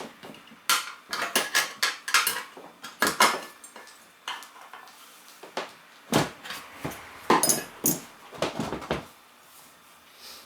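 Metal hand tools clinking and knocking against a spoked motorcycle wheel rim during a manual tyre change, typical of tyre levers being worked around the rim. The knocks are irregular, a few of them ringing briefly about seven and a half seconds in.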